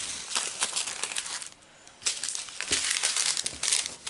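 Foil drill sachets and plastic zip bags crinkling and crackling as they are handled, with a short pause about halfway through.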